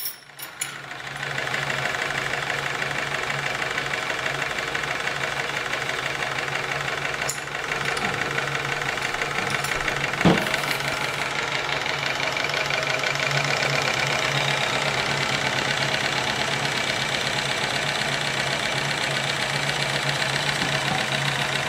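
Small homemade brass twin-cylinder, double-acting steam engine running steadily on live steam with a fast, even beat, driving a small DC motor as a generator under load. Running smoothly, with a couple of brief clicks partway through.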